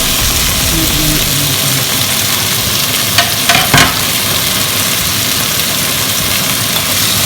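Chayote stir-frying in hot vegetable oil in a frying pan, a steady sizzle. A few clicks of a utensil against the pan come about three to four seconds in.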